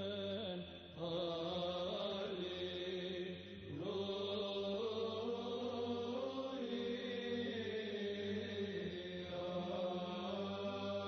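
Background music of slow sung chant: long held vocal notes that glide gently in pitch over a steady low drone, with short pauses between phrases.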